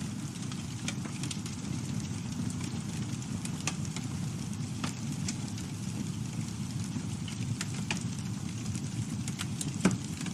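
Campfire burning: a steady low rumble of flame with scattered crackles and pops, and one sharper pop near the end.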